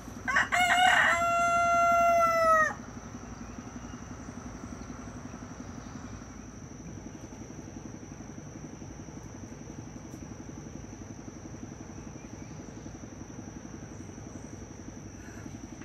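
A rooster crows once near the start: a few short broken opening notes, then a long held note that drops at the end, about two and a half seconds in all. A steady high insect trill carries on underneath.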